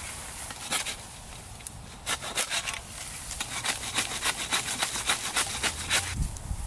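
Hand saw cutting through a dead tree's trunk: quick back-and-forth strokes, about three a second, starting about two seconds in and stopping near the end.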